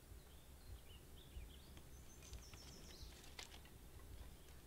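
Faint outdoor quiet: small birds chirping in short rising and falling calls over a low wind rumble, with a few light clicks around the middle.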